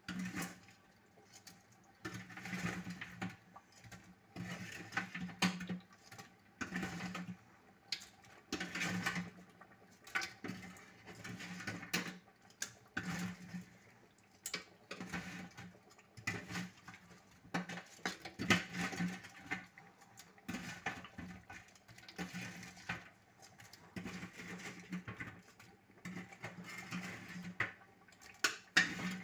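A metal spoon stirring thick stew with chunks of chicken in a metal pot: wet squelching, with scrapes and clicks against the pot in irregular bursts about every second or two.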